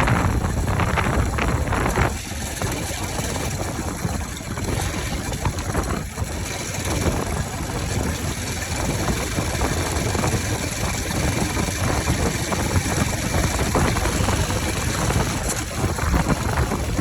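Bajaj Pulsar RS 200's single-cylinder engine running steadily with its air filter removed, giving an open intake sound.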